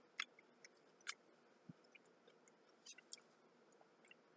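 A handful of faint, sharp crunches from someone chewing a Kool-Aid pickle slice, the loudest about a second in.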